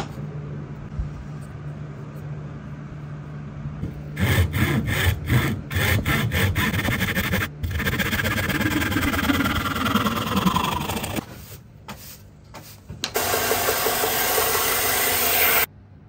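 Fine-bladed hand saw cutting a piece of OSB clamped in a bench vise, in repeated back-and-forth strokes. A low steady hum comes before the sawing starts, and a steady loud sound near the end cuts off suddenly.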